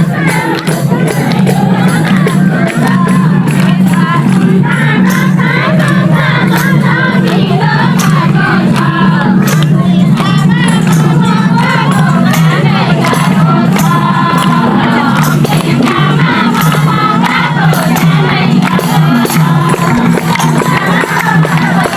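Loud festival music in which a group of voices sings over a steady percussive beat, with crowd noise mixed in. It is the kind of folk song performed for a Teej dance.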